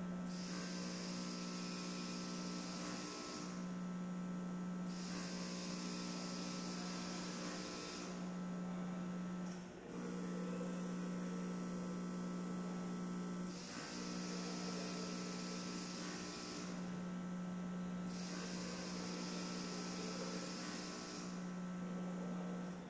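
A steady low electric hum with overtones, dropping out briefly a few times, under a high hiss that cuts in and out every few seconds.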